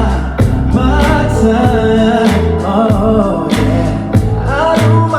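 A man singing a slow soul/R&B song into a microphone over a backing track with bass and drums.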